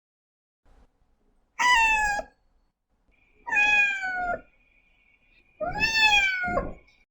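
Domestic cat meowing three times, about two seconds apart, each meow under a second long and falling in pitch towards its end.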